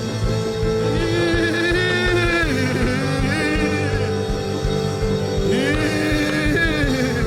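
Worship music: sustained keyboard chords over a steady low drum beat, with a voice singing long, drawn-out phrases three times.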